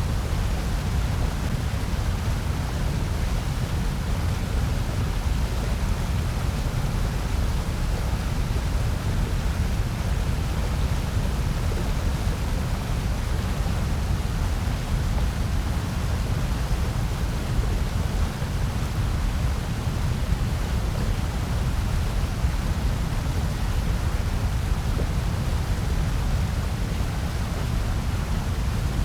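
Continuous generated noise, presented as white noise: a steady, unchanging hiss with its strongest energy in a deep low rumble and a fainter, even hiss across the higher range.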